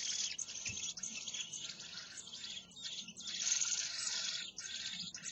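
Common blackbird nestlings begging for food at the nest: high, hissing calls in many short bursts with brief breaks between.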